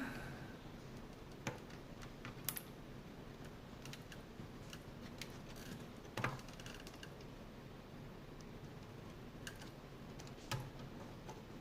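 A few faint, scattered clicks and taps, about four in all, with the loudest a little past the middle, over a low steady background hiss.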